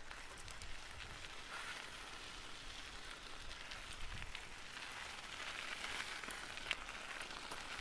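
Faint steady background noise, a light hiss with a few scattered soft ticks.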